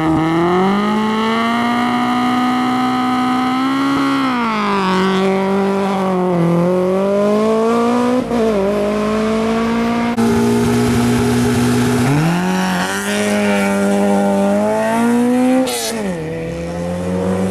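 Rally cars launching from a stage start and accelerating hard away, the engine's pitch climbing and then dropping sharply at each upshift. About ten seconds in it cuts to a second car pulling away the same way, again rising and falling through the gears.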